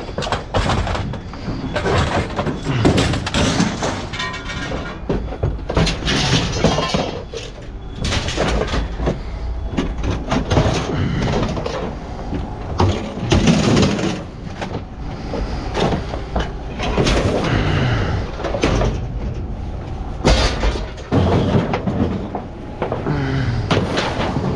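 Scrap steel appliances being thrown off a truck bed onto a scrap pile: irregular metal bangs and clangs, with sheet metal scraping and ringing between them.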